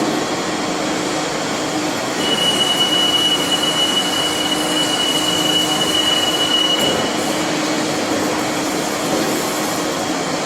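Large CNC vertical lathe running: a steady mechanical rumble and hum, with a high whine from about two seconds in that stops about seven seconds in.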